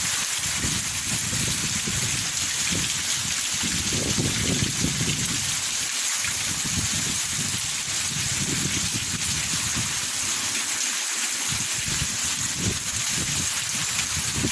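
Heavy rain pouring steadily, an even hiss with an uneven low rumble underneath.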